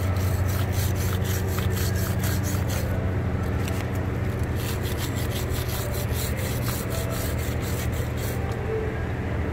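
A hand wire brush scrubs an AMG brake caliper in quick back-and-forth strokes, about five a second, to clear brake dust and grease from where the pads slide. The brushing pauses briefly about three seconds in and stops near the end. A steady low hum runs underneath.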